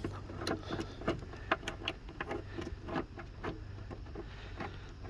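Irregular light clicks and taps of seatbelt hardware being handled and set in place, metal bracket and bolt knocking lightly, thinning out over the last second or two.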